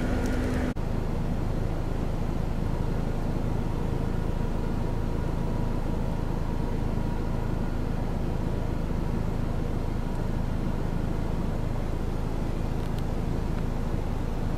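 Steady low rumble of a motor vehicle engine running, with a faint steady whine over it; the sound breaks off abruptly less than a second in and resumes unchanged.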